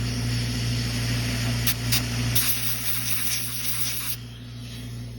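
A metal carving instrument scraping across setting amalgam: two short scrapes, then a longer scratchy scrape lasting about two seconds.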